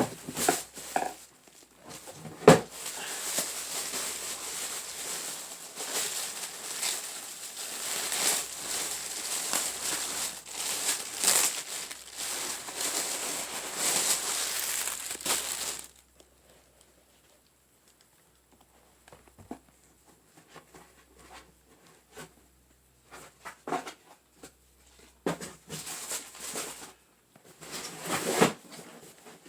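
Packaging crinkling and rustling as a sneaker is pulled out of its box and unwrapped, with one sharp knock about two and a half seconds in. After about sixteen seconds it drops to quieter, scattered handling noises, with a brief louder rustle near the end.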